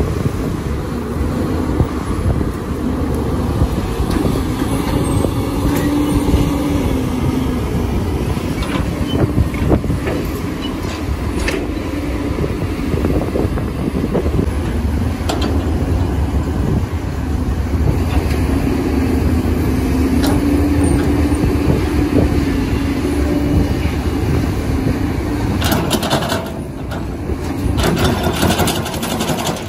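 Diesel engines of hydraulic excavators and dump trucks running steadily, with the engine note rising and holding twice as it works under load. A few sharp knocks, and a cluster of clatter near the end.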